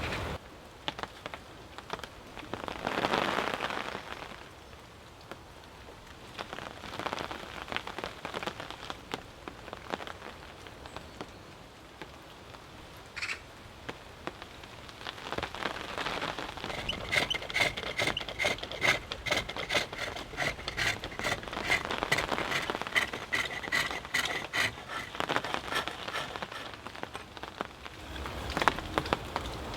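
A turning tool cutting a spinning cylinder of green alder on a spring pole lathe: a dense crackle of clicks and scraping that comes and goes in swells, busiest in the second half.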